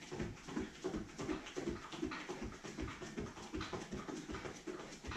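Bare feet thudding in a rhythm on exercise mats and a wooden floor, several footfalls a second, with hard panting breaths from people running on the spot with high knees.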